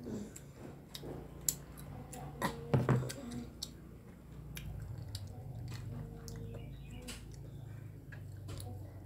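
A child chewing a mouthful of rice and spicy tongkol balado fish, with small wet clicks and smacks from the mouth and fingers. A couple of louder knocks come around three seconds in, over a low steady hum.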